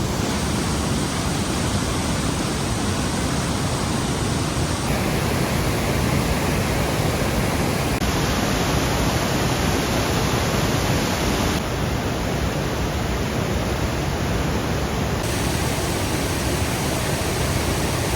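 Steady rushing of a waterfall in high snowmelt flow. Its tone shifts abruptly every few seconds.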